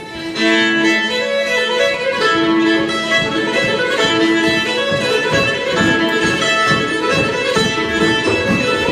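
Old-time string band starting a tune about half a second in: fiddle leading over mandolin and guitar, with upright bass.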